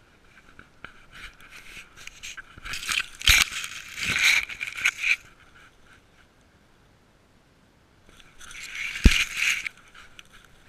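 Dry dead grass and twigs crackling and scraping against a GoPro worn by a cat as the cat moves through the grass. It comes in two spells, the first longer, and each has a sharp knock as the camera bumps.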